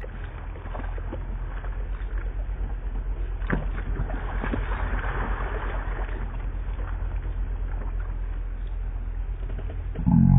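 Steady low rumble of wind and water noise around a kayak, with a few faint knocks and a swell of splashing about halfway through as a pike swirls at the surface on a hooked fish.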